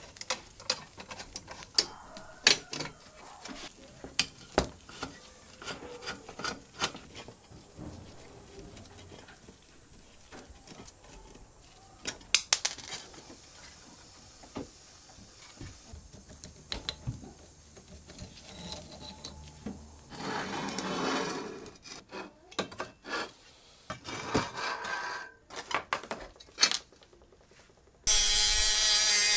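Rusty steel tricycle parts being worked apart by hand: pliers and metal pieces clicking, tapping and clinking, with a couple of short stretches of scraping and rubbing. Near the end a power tool starts abruptly and runs loudly and steadily.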